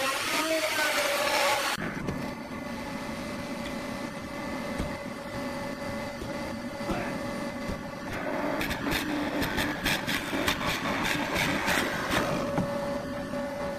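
A machine's motor running steadily with a low hum. From about 8 to 12 seconds in, a quick run of sharp clicks and knocks sounds over it.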